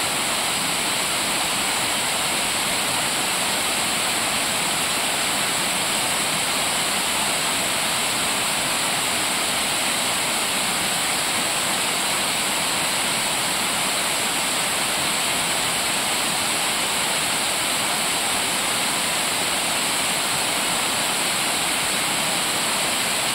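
River waterfall pouring steadily into the pool below, an even, unbroken sound of falling water from a cascade fed by the rains.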